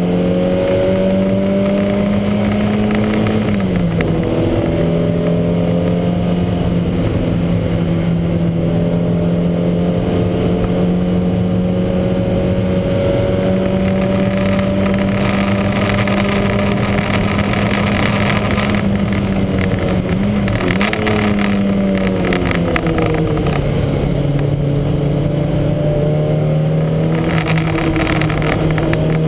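Lancia Montecarlo race car's engine running hard under load, its note climbing slowly through each gear. The pitch drops sharply at gear changes about three and a half seconds in and again about twenty seconds in. The car is running with a misfire that its owner calls huge.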